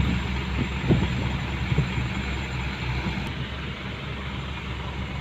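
Heavy diesel engine running steadily, with a couple of brief knocks near the start and about a second in.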